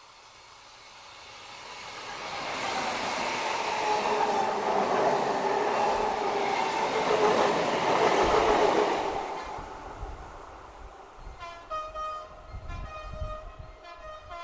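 Diesel locomotive and its train passing close by: the sound builds up, is loudest for several seconds as it goes past, then dies away, with low rumbling thumps as the rear of the train goes by. Music with plucked notes fades in near the end.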